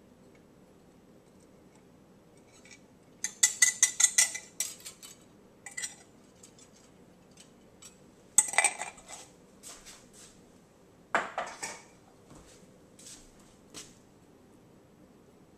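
Kitchen utensil clinking and scraping against a bowl as sauce is poured out of it: a quick run of clinks about three seconds in, then a few heavier knocks and scrapes and some scattered ticks.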